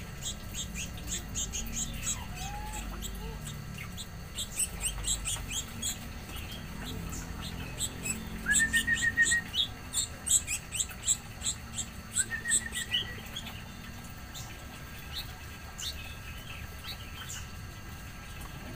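Small songbirds, a tame sooty-headed bulbul among them, chirping: a fast run of short high-pitched cheeps that grows busiest and loudest about halfway through, with a couple of short rising whistles.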